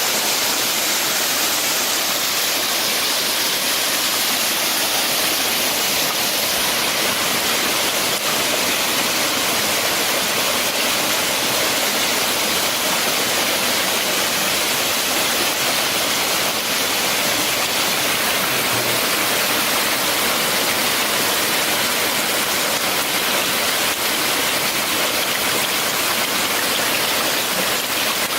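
A steady, even rushing hiss with no breaks or changes, of the kind made by flowing water.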